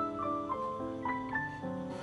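Background music: a keyboard melody over held chords, the notes changing every quarter to half second.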